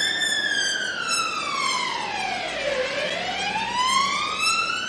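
Police siren on a police Land Rover wailing slowly: the pitch slides down for nearly three seconds, then climbs again.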